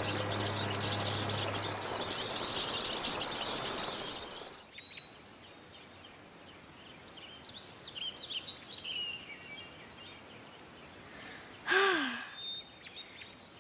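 A flock of small birds twittering densely for about four seconds, then thinning to scattered chirps and calls. About twelve seconds in comes a girl's short sigh.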